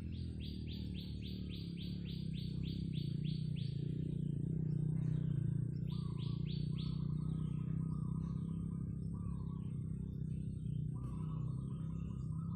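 Garden birds calling: a fast run of repeated high chirps, about three or four a second, for the first few seconds and again briefly near the middle, with a steady buzzy trill starting and stopping behind them. A steady low hum runs underneath.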